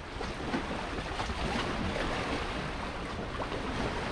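Steady wash of small waves against concrete breakwater blocks, with wind noise on the microphone.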